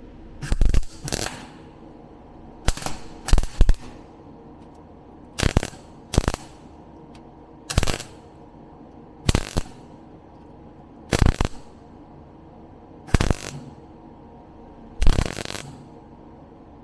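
Electric welder laying short tack or stitch welds on the car's floor-pan steel: about a dozen brief bursts, each well under half a second, one every second or two, some in close pairs.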